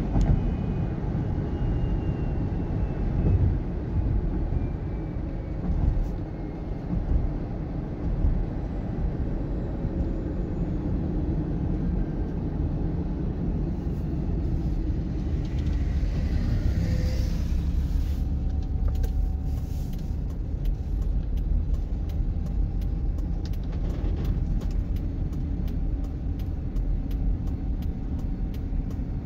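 A car driving on a highway, heard from inside the cabin: engine and tyre noise as a steady low rumble.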